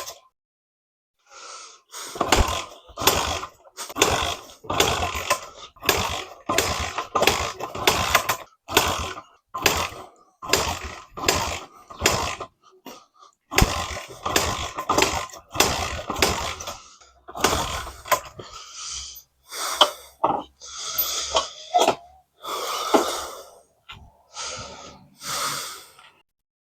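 Honda XR100R's single-cylinder four-stroke engine being kickstarted over and over, each kick turning it over with a short whooshing chuff, a little more than one a second, without the engine catching.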